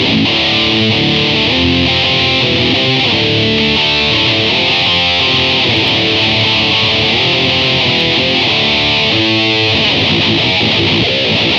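Electric guitar played through a guitar effects unit and recorded direct into an audio interface, with no microphone on an amp. It plays a continuous passage of riffs and chords.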